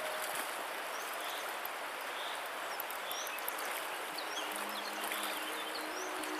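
Shallow mountain river rushing over stones, a steady wash of water noise, with short high bird chirps over it.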